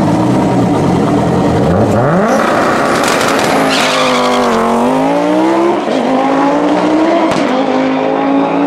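Turbocharged Volvo T5 2.3-litre five-cylinder in a VW Mk3 Golf drag car, held at steady revs on the start line and then launching. The revs climb steeply about two seconds in, the note falls as the car passes close by, and it runs on at full power down the strip.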